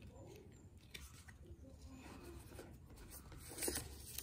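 Paper rustling as a hand handles the documentation envelope and sticker sheet, faint at first and louder for a moment about three and a half seconds in.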